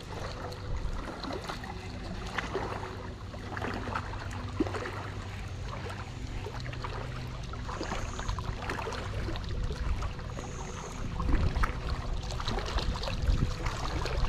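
Small waves lapping and splashing against the rocks at the water's edge, with a steady rush of wind on the microphone and scattered small clicks.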